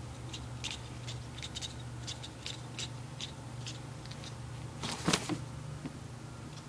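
Kitten chattering at a bug in a light: a run of quick, irregular clicking 'cacaca' sounds, several a second, with one louder call about five seconds in.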